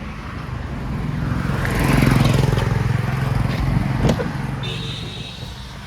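A motor vehicle passing by: engine and road noise swell to a peak about two seconds in, then fade away.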